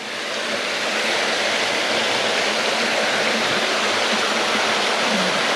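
A waterfall rushing steadily, a dense, even roar of falling water that grows a little louder over the first second.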